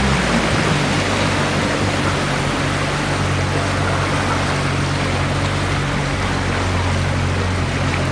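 Motorboat engine running steadily at slow harbour speed, a low hum that shifts slightly in pitch just after the start, over a steady hiss of wind and water.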